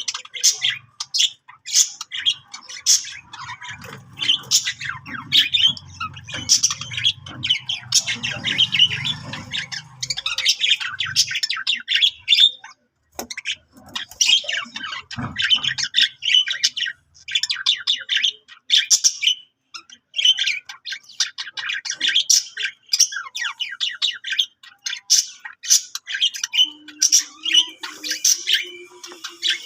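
Budgerigars chattering and warbling: a continuous run of rapid, high chirps and squawks with hardly a pause. A low hum sits underneath from about four to ten seconds in.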